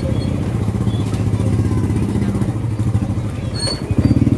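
Motorcycle-sidecar tricycle's engine running at low revs close by, a steady rapid chugging that gets louder near the end as it pulls alongside.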